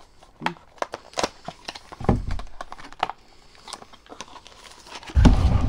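Small cardboard box being opened and a plastic bag of toy parts crinkling in the hands, with many sharp clicks and crackles. Near the end a loud low thump and rumble comes in.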